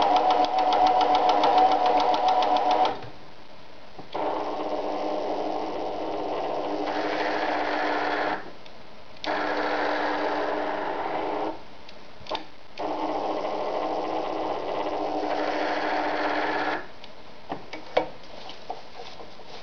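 Riccar 906E electronic sewing machine stitching cotton fabric, running in several stop-start bursts. It is loudest for the first three seconds, with a rapid even needle beat, then runs steadily three more times for a few seconds each with short stops between. A few light clicks come near the end.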